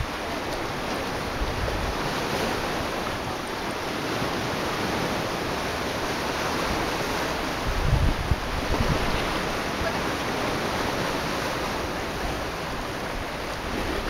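Small sea waves washing against shoreline rocks as a steady hiss, with wind buffeting the microphone in low gusts, strongest about eight seconds in.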